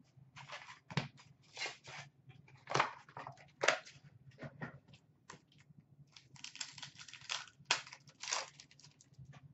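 2016-17 Upper Deck Ice hockey card box and its foil packs being handled and ripped open by hand: a run of irregular crinkles, rustles and tearing sounds.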